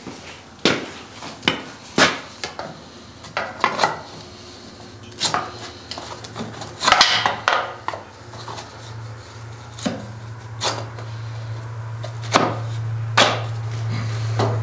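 Plastic slide strips, cut from restaurant cutting board, being knocked and pushed by hand into the steel side guides of a forge press, giving irregular knocks and clatters. A steady low hum comes in about halfway and grows louder.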